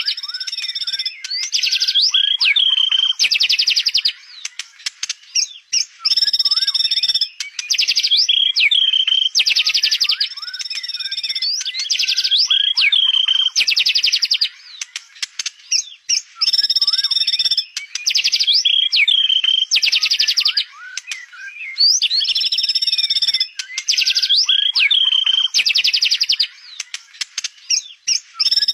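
White-rumped shama singing continuously and loudly: clear whistled notes alternating with fast rattling trills and swooping notes, in phrases separated by brief pauses every few seconds.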